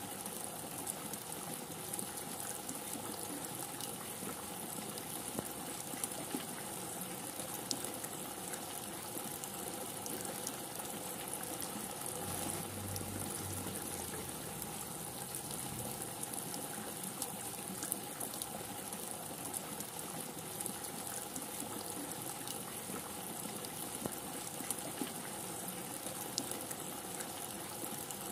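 Steady rain falling: an even hiss full of small drop ticks, with a brief low rumble about halfway through.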